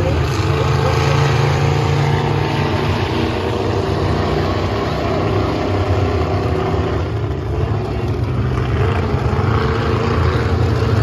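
Monster truck engines running loudly and steadily, a deep engine note with no sharp revs or impacts.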